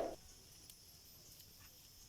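Campfire crackling faintly, a few soft separate pops, over a steady high hiss; the tail of a loud knock fades away right at the start.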